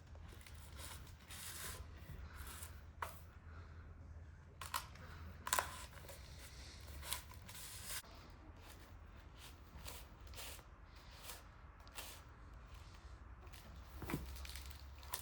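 Faint scattered rustling and crackling with sharp clicks, as dry broom straw is handled while a broom is tied, over a low steady hum.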